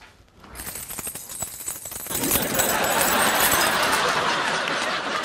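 Studio audience applause on a sitcom soundtrack: scattered claps about half a second in that build into steady, dense clapping by about two seconds.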